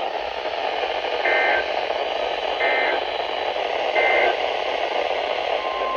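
Weather radio static hiss with three short warbling bursts of EAS/SAME digital data tones, about one and a half seconds apart. Near the end a steady single-pitch weather radio alert tone begins.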